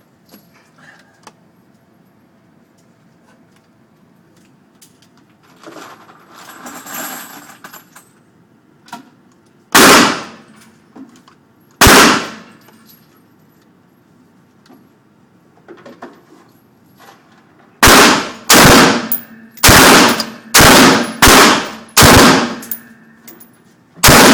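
AR-15 semi-automatic rifle firing single shots: two shots a couple of seconds apart, then a quick string of about seven shots fired about 0.7 s apart, and one more near the end.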